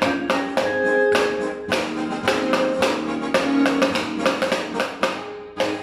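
A homemade drum struck in quick, uneven strokes, playing along with backing music that has steady held tones.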